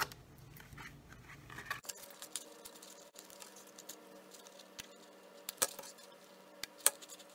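Scissors snipping as sparkly tape is trimmed along the edge of a plastic soda-bottle face shield: a scatter of small clicks, with two sharper snaps near the end. A faint steady hum comes in about two seconds in.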